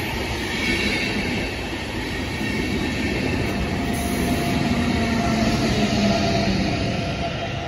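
InterCity passenger train passing close by, its coaches rolling over the rails with a dense rumble. From about four seconds in, a steady hum joins as the red electric locomotive at the rear goes past, and the noise eases slightly near the end.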